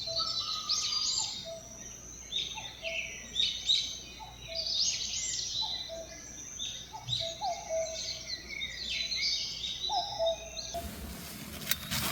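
Wild birds singing, with repeated varied chirps and trills and some short lower notes. About a second before the end the sound cuts abruptly to a rougher background with clicks.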